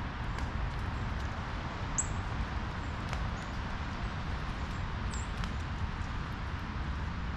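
Small birds chirping: two short, high chirps about two and five seconds in, with faint ticks, over a steady low outdoor rumble.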